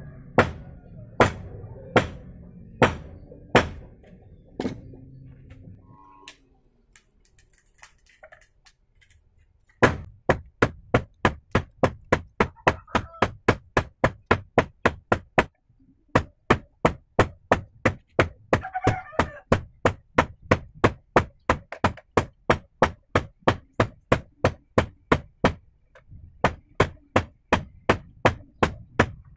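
Hand hammer striking red-hot bearing steel on a steel anvil, forging a knife blade: a few spaced blows at the start, a pause of a few seconds, then a long run of quick, even blows at about three a second.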